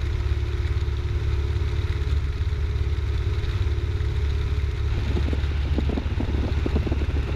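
Cessna 172's piston engine and propeller droning steadily at pattern power, heard inside the cabin. From about five seconds in, irregular crackling joins the drone.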